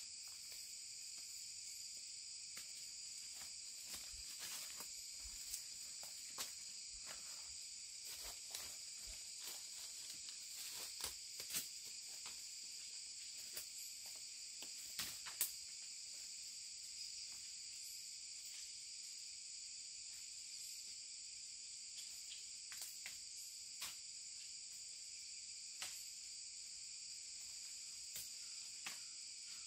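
Steady high-pitched drone of forest insects, with scattered crackles and snaps of footsteps on dry leaf litter and of brushing through undergrowth. The snaps are thickest in the first half, and the sharpest comes about fifteen seconds in.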